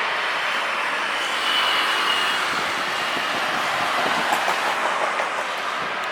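Jet engine noise of an Airbus A320 on takeoff: a loud, steady rumble with a brief faint high whine about a second in and a crackling texture in the second half.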